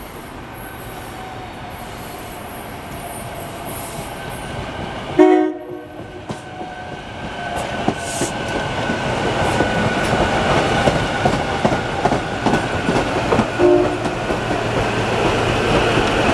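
SEPTA Silverliner V electric commuter train coming into the station: its horn gives a short blast about five seconds in and a brief toot near the end, while the rumble and clatter of the cars passing close grows steadily louder.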